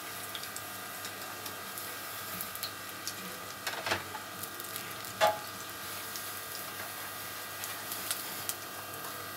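Potato balls deep-frying in hot oil in a kadai: a steady, crackling sizzle. Two short knocks come through it about four and five seconds in.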